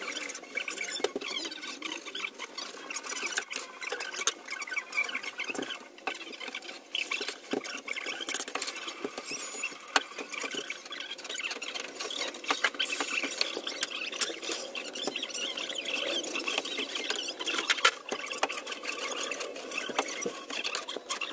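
Kitchen knife cutting raw fish fillets on a plastic cutting board: scattered taps of the blade on the board, with high, wavering squeaky scraping.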